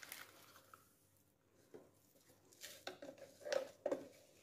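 Faint kitchen handling sounds: a few light clicks and short rustles from spoons and spice containers being handled, busiest about three seconds in.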